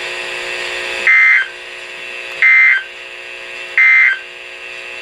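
Emergency Alert System end-of-message signal on NOAA Weather Radio: three short, loud bursts of warbling SAME digital data tones, about 1.3 s apart, marking the end of the tornado warning broadcast. A steady faint hum runs under and between the bursts.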